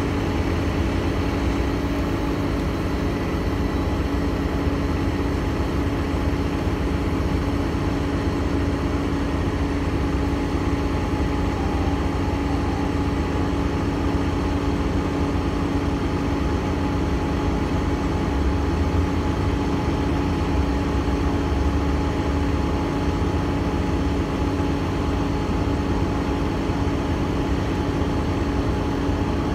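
Metrobus transit bus idling at a stop, a steady low engine rumble with a constant hum.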